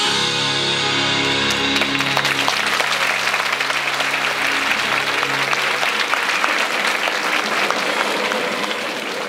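Music ringing out on its final held notes and fading away about six seconds in, as an audience breaks into applause about a second and a half in and keeps clapping.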